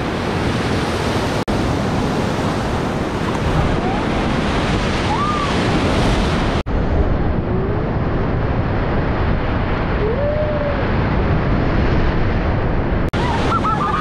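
Whitewater river rapids, a loud continuous rush of churning, splashing water around a raft running the rapid. A few faint shouts come through the roar, and the sound breaks off for an instant three times.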